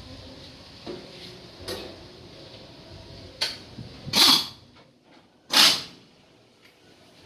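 Hand tools working metal on a truck's propeller shaft where it joins the gearbox: a few light clicks, then two short, loud rasping strokes about a second and a half apart, near the middle of the stretch.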